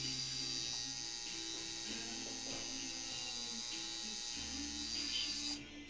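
Electric tattoo machine buzzing steadily as the needle works a chest tattoo, with music and its bass line playing underneath.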